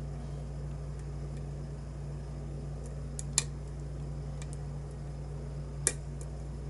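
Small sharp metallic clicks of a lock pick working the pin stack of a custom challenge lock: a handful, scattered, the loudest about three and a half seconds in and another near six seconds, over a steady low hum. The picker thinks he is oversetting a pin.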